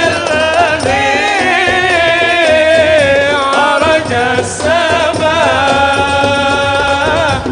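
A man singing Arabic devotional poetry (a qasida) in a high, ornamented voice, holding long wavering notes over musical accompaniment.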